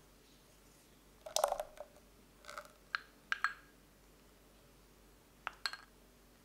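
Kitchen utensils clinking and tapping against a glass mixing bowl: a handful of light, separate clinks, some with a brief ring from the glass.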